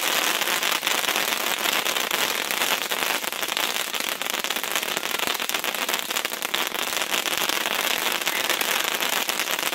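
Hot Flash ground fountain firework spraying: a steady hiss of burning sparks with dense, continuous crackling.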